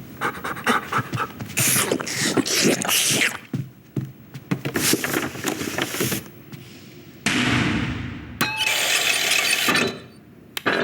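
Animated-film foley: a rapid run of clattering knocks and scuffs, then two sudden loud bursts of hissing noise, each stopping abruptly.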